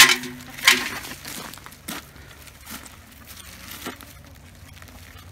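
Electric poultry netting rustling and clicking as it is handled, its plastic posts and mesh knocking together. Two loud sharp bursts come in the first second, then scattered small clicks.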